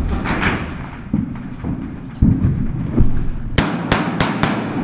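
A rapid string of four sharp gunshots near the end, about four a second. Before them come several dull thumps and knocks.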